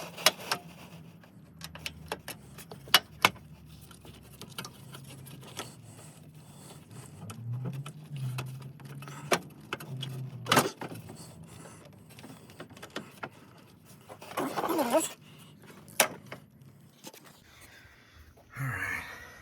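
Metal tools and parts clinking and clicking irregularly against each other as a wrench is worked on radiator and condenser bolts, over a low steady hum.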